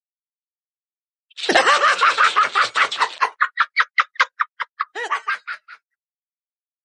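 A cackle: a pitched, voice-like call that breaks into a quick run of short pulses, about five a second, fading out.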